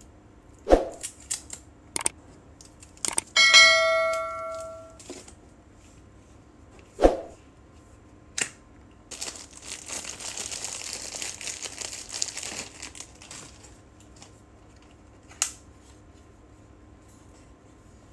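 Plastic packaging being handled: a few sharp clicks and knocks, a single bell-like ding a few seconds in that rings out over about a second and a half, then clear cellophane wrap crinkling for several seconds as it is pulled off a cable.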